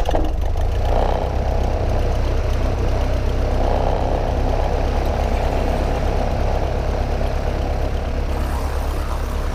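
The 1947 Cessna 120's four-cylinder air-cooled engine and propeller running steadily at idle just after start-up, a low, even drone.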